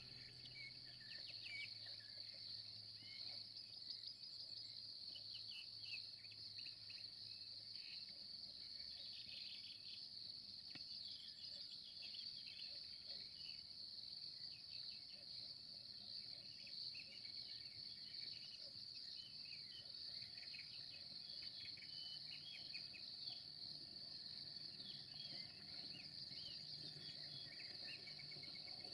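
Crickets chirring: a faint, steady high-pitched insect chorus, with short scattered chirps over it.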